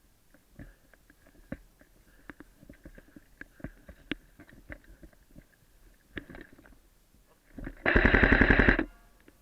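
Airsoft gun firing one rapid full-auto burst of about a second near the end, loud and evenly spaced. Before it, only faint scattered clicks and rustling.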